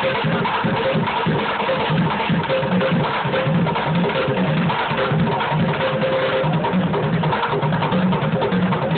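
Bucket drumming: a street drummer beating upturned plastic buckets with drumsticks in a fast, busy rhythm, with deep thuds from the bucket bottoms under quick sharp clicks of stick on rim.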